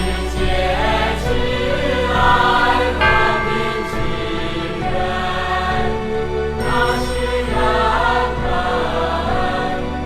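A slow song with voices singing over steady accompaniment.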